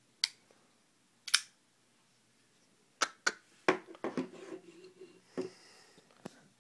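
Sharp clicks and snaps of a spring-assisted folding pocket knife being flicked open with the thumb and folded shut, about eight in all, several close together near the middle.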